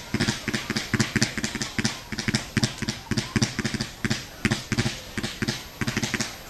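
Fireworks going off in rapid succession: a continuous run of sharp pops and cracks, several a second.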